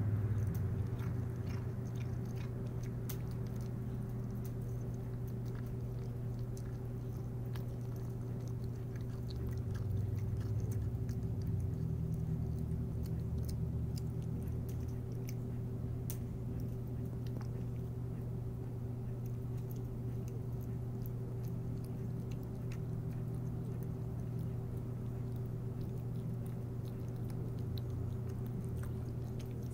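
A cat chewing wet cat food from a plastic bowl, with many small wet clicks, over a steady low hum.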